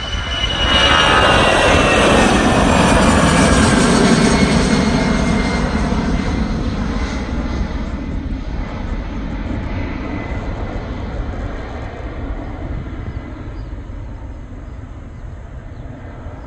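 Jet aircraft passing close by: engine roar swells about a second in, with a high whine that falls in pitch as it passes, then slowly fades.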